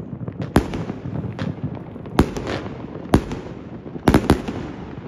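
Fireworks going off: about six sharp bangs at irregular intervals, two in quick succession near the end, with crackling in between.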